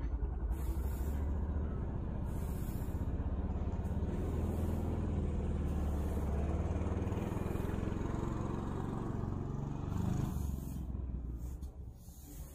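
Steady low rumble of a heavy road vehicle running close by, fading out near the end, with a few short brushy scrapes of straw corn brooms sweeping paving tiles.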